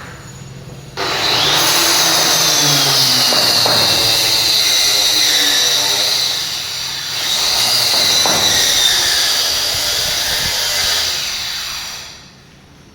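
A power tool running and working wood with a loud, high-pitched whine. It starts suddenly about a second in, eases briefly around six seconds, picks up again, then winds down near the end.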